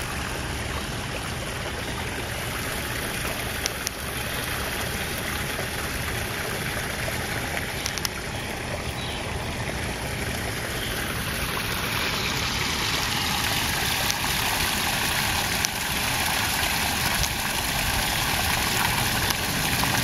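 Small rock waterfall splashing steadily into a garden pond, a continuous rushing trickle that grows a little louder in the second half.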